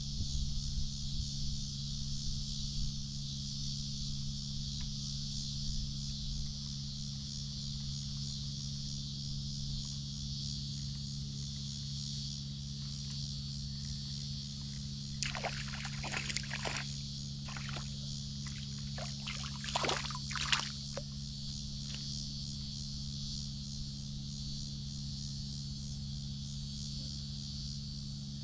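Steady high-pitched insect chorus over a pond-side summer scene, with a faint steady low hum underneath. About halfway through come a handful of brief sharp clicks.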